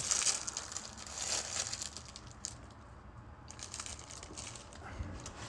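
Plastic wrapper crinkling as it is pulled open around a cookie, with crackly handling noise, going quieter for a moment midway.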